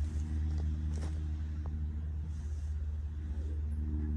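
A steady low engine hum running at an even pitch, with a few faint knocks about a second in.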